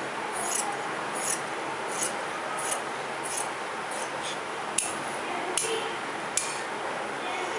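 Large scissors cutting through cloth, snipping about every two-thirds of a second, with a few sharper clicks from the blades in the second half.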